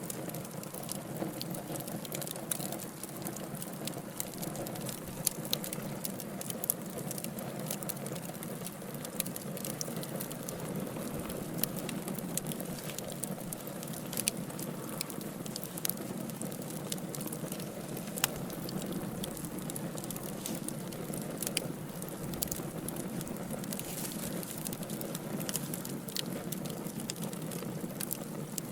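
Wood fire burning in a fireplace: a steady low rush from the flames with frequent sharp crackles and pops from the burning logs.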